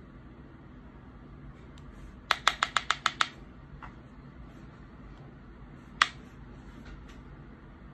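A quick run of about seven sharp taps, then a single louder tap a few seconds later: a makeup brush knocked against a hard eyeshadow palette.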